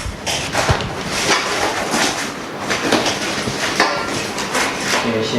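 Irregular knocking, clattering and rustling of machine accessories and their packaging being handled and unpacked.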